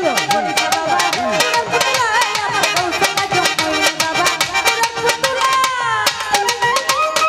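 Bengali folk music ensemble playing: a quick, busy hand-drum rhythm with low strokes that bend in pitch, under a sustained reedy melody.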